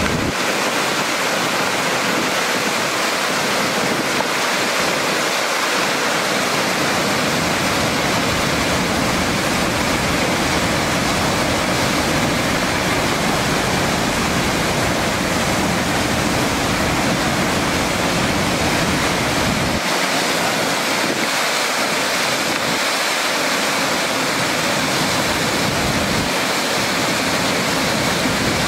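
Steady rushing of a river weir: water pouring over a stone dam spillway and crashing into foaming rapids below.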